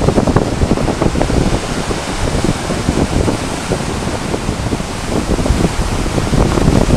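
Heavy sea surf breaking and washing over rocks, with wind buffeting the microphone; the surf grows louder near the end as a big wave breaks.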